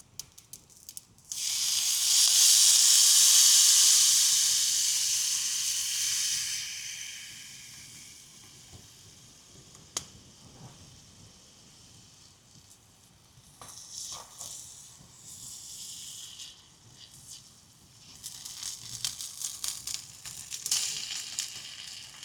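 Food sizzling in a hot pan: a loud burst of sizzling starts about a second in and dies down over several seconds, then lighter crackling sizzles return near the end.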